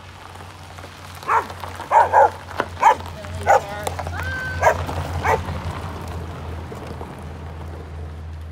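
A dog barks about seven times in quick succession, with a short whine among the barks, over the steady low rumble of an Oldsmobile convertible's engine running.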